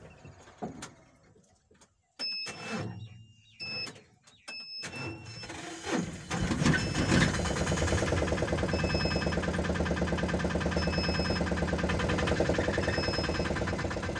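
A small car's engine starts about five seconds in and then runs steadily, with a short warning beep repeating about every two seconds. Before the start there are a few clicks and short beeps.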